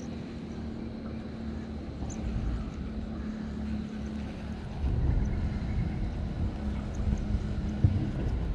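An engine running steadily with a low hum, under a low rumble that grows louder about five seconds in.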